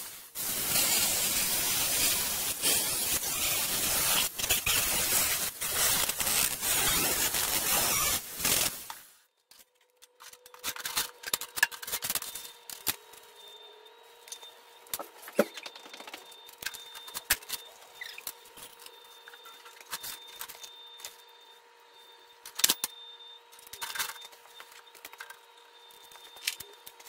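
Angle grinder grinding sheet metal for about nine seconds, then spinning down. After that come scattered light knocks and scrapes as the metal sheet is handled, over a faint steady hum.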